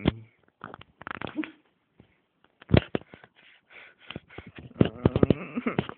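Dog sniffing and snuffling close to the microphone, with sharp knocks and rubbing from the camera being bumped and handled; the loudest knock comes about three seconds in, and several more come near the end.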